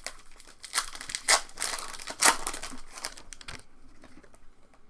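Foil trading-card pack wrapper crinkling and tearing as a pack is opened and handled, a run of crackles with a few sharp clicks over the first three and a half seconds, then quieter.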